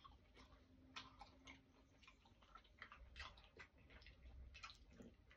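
Near silence with faint, irregular little clicks: mouth sounds of people chewing jelly sweets.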